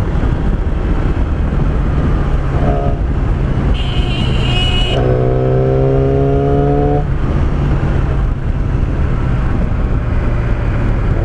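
A 2011 Yamaha YZF-R6's inline-four engine with a Yoshimura aftermarket exhaust, running loud and steady while riding. About five seconds in, its pitch rises for a couple of seconds as it accelerates.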